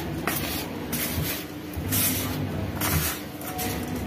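Hand mixing a dry vada mix of maida, semolina, rice flour and onion in a steel bowl: a rhythmic gritty rustle, about two strokes a second.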